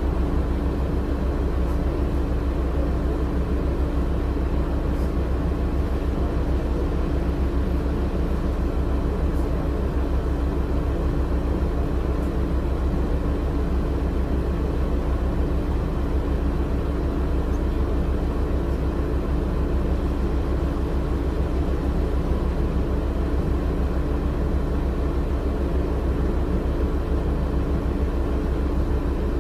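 The rear-mounted Cummins ISL9 six-cylinder diesel of a 2006 Orion VII low-floor bus, running at a constant speed and heard from the passenger cabin as a steady low drone with an even hum that does not change.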